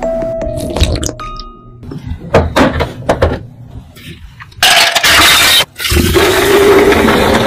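Ice cubes clinking against glass, several separate clinks, then two cans of Sprite poured at once into a glass pitcher: a loud, rushing, fizzing pour that breaks off briefly and resumes, its pitch rising slowly as the pitcher fills.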